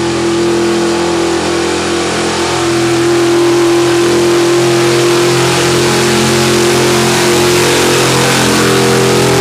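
Pickup truck's engine held at steady high revs under full load, pulling a weight-transfer sled down a dirt track. It gets a little louder about two and a half seconds in.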